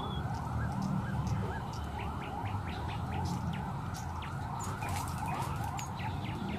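Pond water sloshing and gurgling as a stick is worked among submerged branches to free a snagged, hooked fish. A rising call repeats about three times a second behind it, with scattered short chirps.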